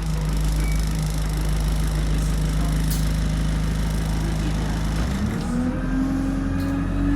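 Bus engine running steadily at a low idle, then about five seconds in the revs rise and hold at a higher drone as the bus pulls away, heard from inside the cabin. A single click sounds near the middle.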